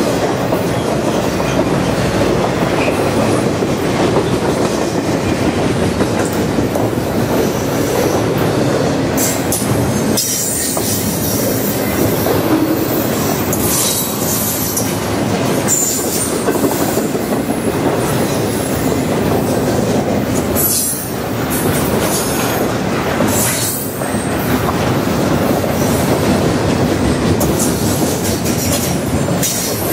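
Double-stack intermodal train's well cars rolling past close by: a steady rumble of steel wheels on rail, with clacks over rail joints and brief high-pitched wheel squeals in the middle.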